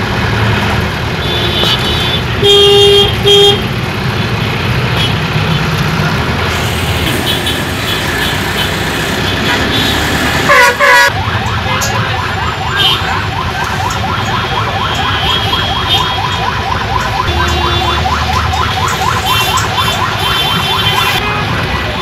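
Busy road traffic with vehicle horns honking: two loud horn blasts about three seconds in and two more about halfway through, over a steady rumble of engines.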